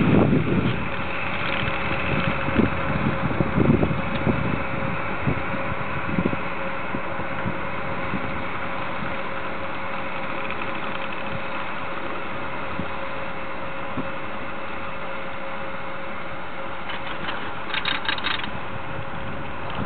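Platter ski lift ridden uphill: the haul rope and lift run with a steady mechanical hum. Wind buffets the microphone for the first few seconds. Near the end there is a brief rapid clatter as the rope runs over the sheaves of a lift tower being passed.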